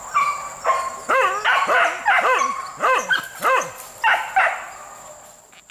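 Hunting dog barking and yelping in a rapid string of about a dozen short, high yelps that rise and fall in pitch, trailing off near the end.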